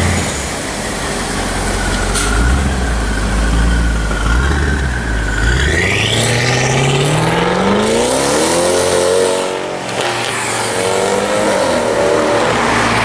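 G-Power-tuned BMW M6 accelerating hard, its engine note climbing steadily in pitch, cutting briefly for a gear change about ten seconds in, then pulling again.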